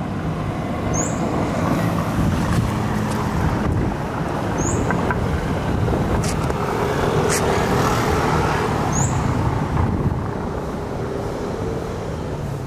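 Street traffic: a steady rumble of car and motorbike engines running close by, with a motorbike passing midway. A short high chirp repeats about every four seconds.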